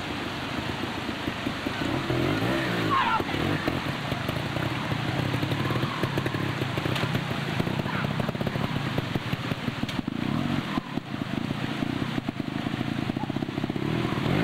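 Trials motorcycle engine running at low revs as the bike is ridden over rocks and through a shallow creek, with a few short rises in revs.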